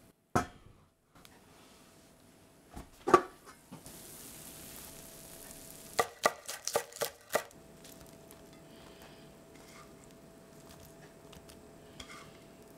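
A chef's knife chopping spring onions on a wooden cutting board: a quick run of about six chops. A single sharp knock, the loudest sound, comes a few seconds earlier.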